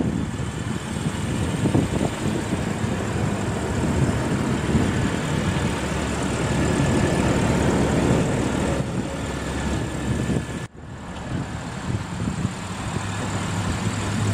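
2012 Audi A8 L idling, heard from outside close to the front of the car, under a steady rushing outdoor noise. The sound drops out abruptly for a moment about eleven seconds in.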